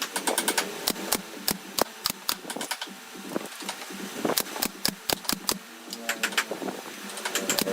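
Rapid, irregular sharp clicks and light knocks, several a second, as of hard objects or tools being tapped and handled.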